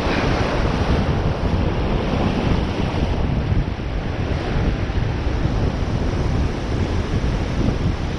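Surf breaking and washing around the angler's legs, with strong wind buffeting the microphone in a heavy, gusting rumble.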